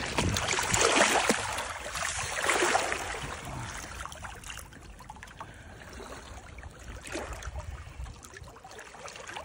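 A large released wels catfish splashing off through shallow water, loudest over the first three seconds or so. After that the splashing and lapping taper off as it swims away.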